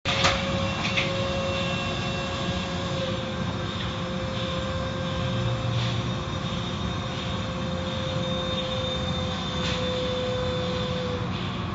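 Car wash machinery running with a steady rushing noise and a constant whine that stops near the end, with two sharp knocks in the first second.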